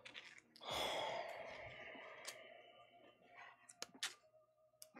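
A long breathy sigh that starts suddenly and fades away over about two seconds, then a few faint clicks and rustles of stiff glossy comic-book pages being handled.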